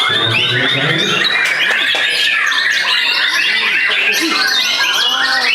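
White-rumped shamas (murai batu) singing in a contest: a dense, continuous jumble of loud, varied whistles, trills and chattering phrases from several birds at once.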